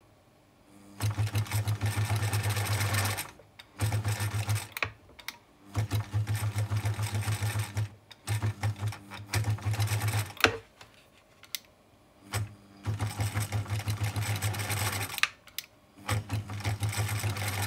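Bernina sewing machine running in short bursts, about eight times, as its Type 238 foot controller is pressed and released, each burst jumping abruptly to speed with a fast, even needle rhythm, with one sharp click partway through. Not the smooth start wanted: a fault the owner puts down to the capacitor in the foot controller.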